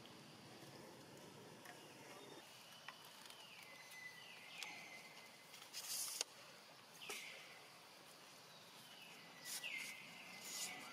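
Faint forest ambience with a high animal call that slides down in pitch and then holds steady, repeated several times, and a few sharp clicks.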